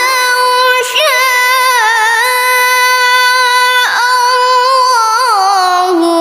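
A solo voice reciting the Quran in the melodic contest style, holding one long, high note with wavering ornaments. It dips briefly about four seconds in and settles onto a lower note near the end.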